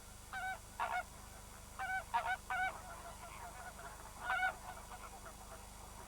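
Greater flamingos calling: about half a dozen short, loud calls in irregular groups, with fainter calls from the flock between them.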